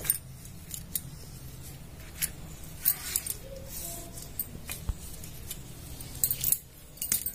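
Glass bangles on the wrists clinking and jingling now and then as hands work over cloth, with a cluster of clinks near the end. A faint steady low hum runs underneath.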